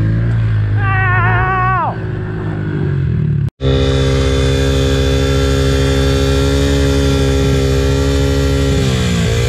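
Small single-cylinder pit bike engine running, with a higher note falling in pitch about a second in. After a sudden break about three and a half seconds in, the engine holds a steady note, which dips briefly in pitch near the end.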